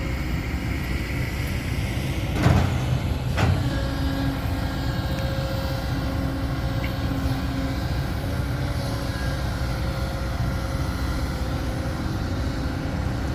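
Dump truck driving over a rough dirt track: steady engine and road noise, with two short knocks about two and a half and three and a half seconds in.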